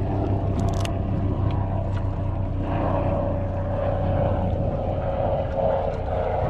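Yamaha outboard motor running steadily at low trolling speed, a constant low hum. A few sharp clicks sound about a second in.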